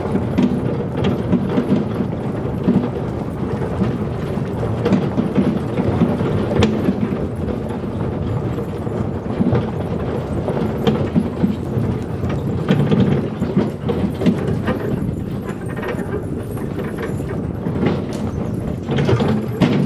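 A sled-dog team pulling a wheeled cart over a gravel trail: steady crunching and rattling of the cart rolling on gravel, with many small clicks and knocks of the dogs' feet and the rig.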